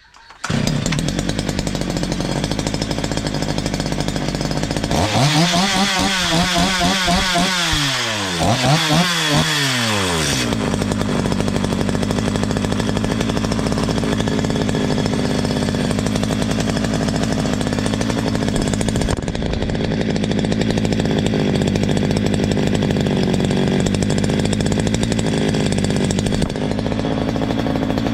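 Stihl MS 230 chainsaw engine catching right at the start and idling. It is revved up and back down twice, about five and eight seconds in, then settles back to a steady idle. It runs evenly, with its loose exhaust muffler freshly tightened.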